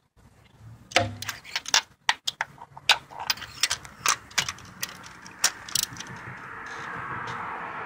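Socket ratchet on a long extension turning a spark plug in the cylinder head, its pawl clicking in quick irregular runs. The clicking stops about six seconds in and a hiss slowly grows louder.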